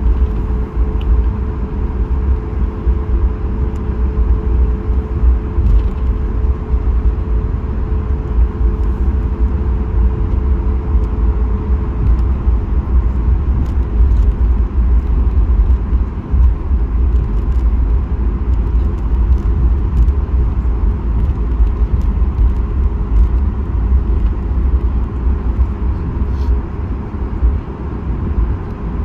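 Cabin noise of a Boeing 737 MAX 8 taxiing, heard from a window seat beside the wing: a steady hum from the CFM LEAP-1B engines at idle over a low rumble from the landing gear rolling on the taxiway.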